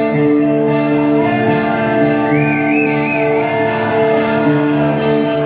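Music: a sustained, droning chord with a wavering high line above it, with no drums playing.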